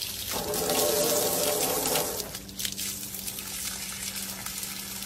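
A stream of water splashing and gushing against window glass, heaviest for about the first two seconds and then running on more steadily.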